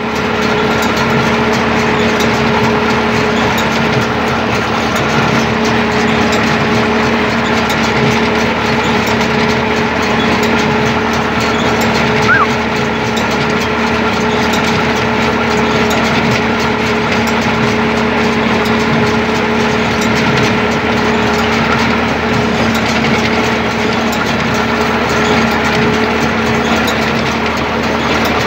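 Rakovica 60 tractor's diesel engine running steadily under load while it pulls and drives an International B-43 small square baler picking up and baling hay. A brief squeak sounds about twelve seconds in.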